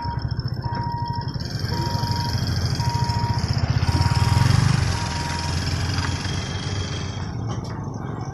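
A train passing a railway level crossing: a heavy low rumble builds to its loudest about four and a half seconds in, then eases. Over it a short warning beep repeats about once a second, stopping a little after five seconds.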